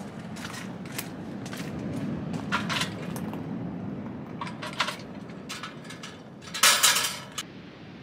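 Footsteps crunching on gravel while the metal wire handle and body of a Paseco kerosene heater clink as it is carried and handled, in a string of sharp clicks with a louder clatter near the end. A steady low rumble of wind and surf runs underneath.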